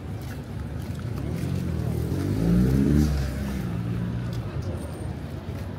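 A motor vehicle's engine passing by, its pitch bending as it goes past, loudest about halfway through and then fading away.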